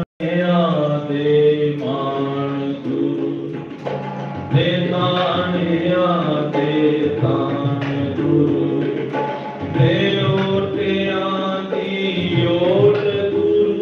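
Shabad kirtan: male voices singing a devotional hymn in a gliding, held melody over the sustained reeds of harmoniums. The sound cuts out completely for a split second just after the start.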